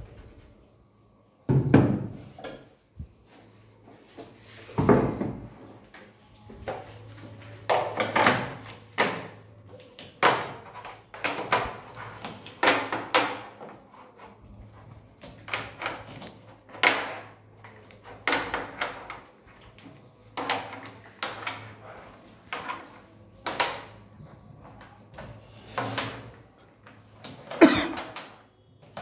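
A wooden carrom board is laid down on a wooden table with a heavy knock, and a second knock follows a few seconds later. After that come repeated sharp clicks and knocks as carrom coins and their small box are handled and set out on the board's surface.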